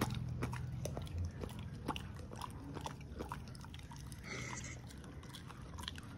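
Golden retriever chewing on a stick of purple sugarcane, with irregular crunches and cracks as its teeth bite into the cane.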